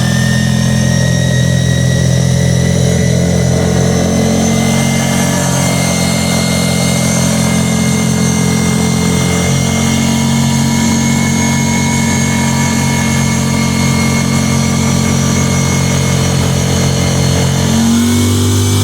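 ATV engine running at a steady pace under way, with a thin high whine from the drive that climbs slowly in pitch. Near the end the engine note drops and changes as the machine eases off.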